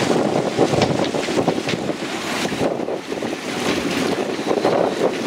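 Storm wind of around 47 knots gusting over a moored sailing yacht and buffeting the microphone, with rough water sloshing against the stone quay wall.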